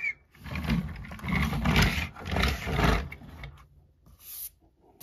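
A man growling in imitation of a tiger's roar, in a few swelling surges lasting about two and a half seconds.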